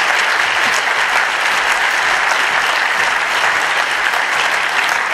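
Audience applauding steadily, a dense patter of many hands clapping, at the end of a talk.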